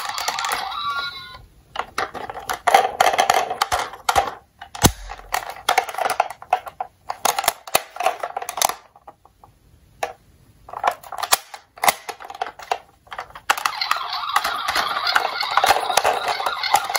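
A toy ambulance's built-in electronic siren sound cuts off about a second in, followed by plastic clicks and knocks as the toy is handled and its doors are opened and shut. The siren sound starts again near the end.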